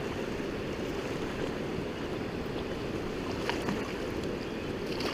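Steady rush of flowing river water, an even continuous noise with a few faint ticks.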